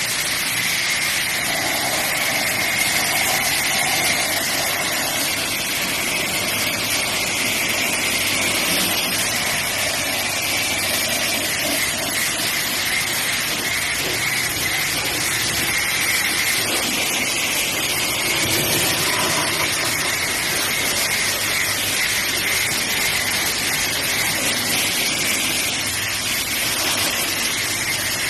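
Pressure washer spraying: a steady, loud hiss of the high-pressure water jet on a surface, with the machine's motor running underneath.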